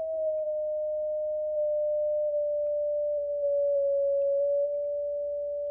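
A transceiver's CW sidetone played through an MFJ-281 ClearTone speaker in a wooden box: one steady pure tone stepped down in pitch a little at a time while searching for the box's resonance. It is loudest at the lowest step, about four seconds in, then drops back slightly as the pitch is nudged up a touch.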